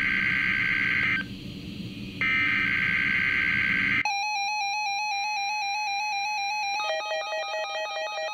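Two bursts of an EAS SAME header, the screechy digital data tones that open a NOAA Weather Radio alert, coming through a Midland WR300 weather radio's speaker with a one-second pause between them. About four seconds in they cut off and an electronic alert tone starts, a buzzy beep that steps down in pitch near the end.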